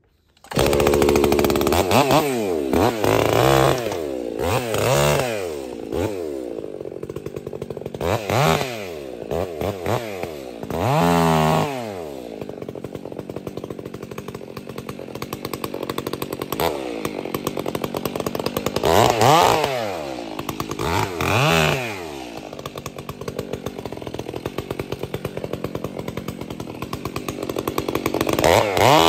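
Stihl 362 C-M two-stroke chainsaw with a Bark Box aftermarket muffler, running loud. It comes in suddenly, then is revved up and let fall back again and again, running lower between the revs.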